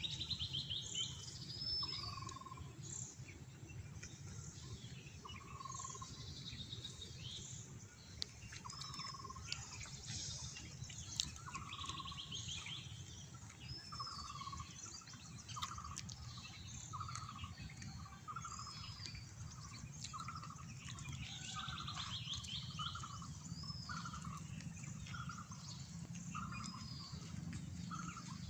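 Several birds calling and singing, with high chirps and short buzzy trills. From about halfway through, one bird repeats a short, lower note roughly once a second. A steady low background rumble runs under them.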